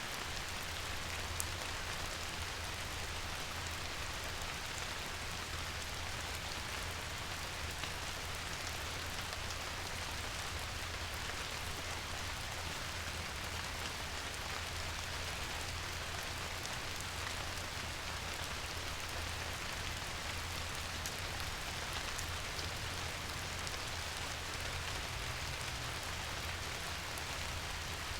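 Steady rain falling on a surface: an even hiss with scattered faint drop ticks and a low steady rumble underneath.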